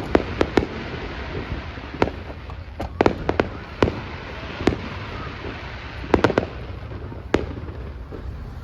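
Fireworks display: aerial shells bursting in sharp bangs at irregular intervals, some single and some in quick clusters, over a steady background noise.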